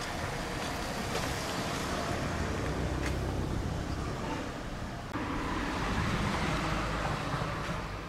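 Gusty wind rumbling and buffeting on the microphone, growing louder about five seconds in.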